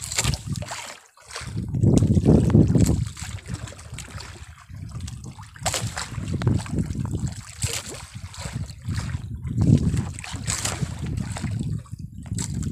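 Sea water sloshing and splashing against the hull of a small fishing boat, its loudness rising and falling irregularly.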